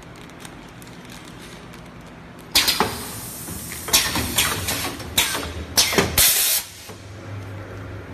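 Pillow-type sanitary pad packing machine running with a low hum, broken by a run of loud hisses of compressed air from its pneumatics between about two and a half and six and a half seconds in.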